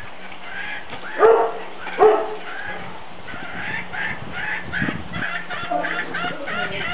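Two short, loud animal calls about a second apart, over continuous chirping and calling of birds.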